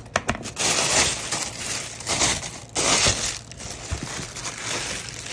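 Shoe packaging being handled and pulled open: a few sharp clicks, then three bursts of crinkling and crushing, roughly a second apart.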